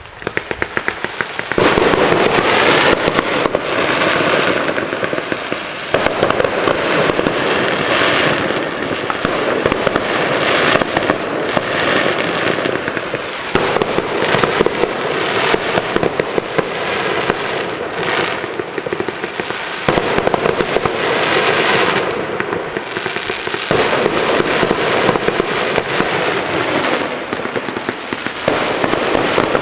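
Fireworks display: a quick run of sharp pops, then a dense, unbroken wash of crackling and bursting shells that changes its texture every few seconds.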